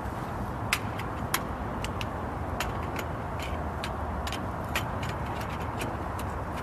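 Scattered sharp clicks and light clinks of small parts and tools being handled, over a steady rumble of background noise.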